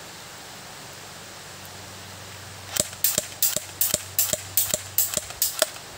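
An airsoft pistol firing about a dozen semi-automatic shots in quick succession, about four a second. The shots start around the middle and stop just before the end.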